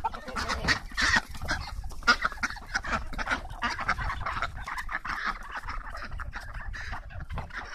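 Backyard ducks and chickens calling as they move about, with scattered sharp clicks and rustles throughout.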